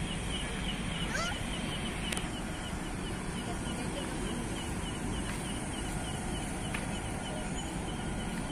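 Outdoor ambience: a steady low background rumble with a rapid, even chirping, about five or six short high chirps a second.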